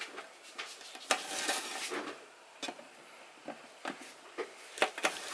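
Kitchen knife slicing green chillies on a large aluminium plate: irregular sharp taps of the blade on the metal, with a short stretch of scraping about a second in.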